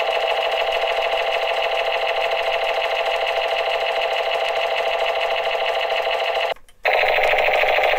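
Battery-operated toy machine gun firing its electronic rapid-fire sound effect through its small speaker, a fast continuous rattle. It stops for a moment near the end, then starts again.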